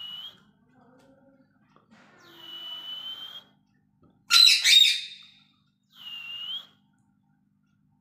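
Indian ringneck parakeet whistling, with long steady whistles, and giving one loud harsh squawk about four seconds in.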